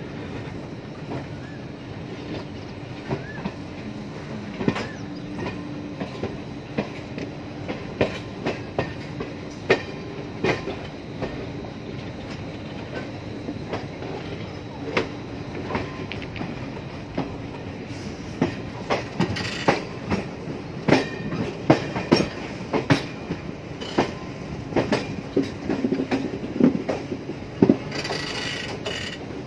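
Passenger train coaches rolling along the track, heard from an open coach door: a steady rumble with the wheels clicking over rail joints. The clicks come more often and louder in the second half.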